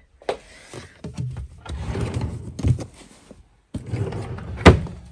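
A drawer opened and rummaged through, with rustling of papers and handling noise, then a sharp knock near the end.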